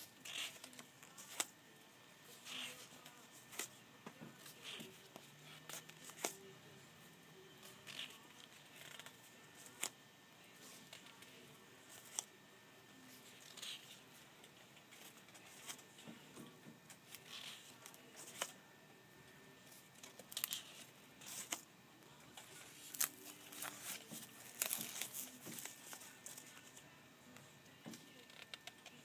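Pages of a fabric sample book being turned and sheer drapery swatches handled: short paper and fabric rustles with soft clicks every second or two.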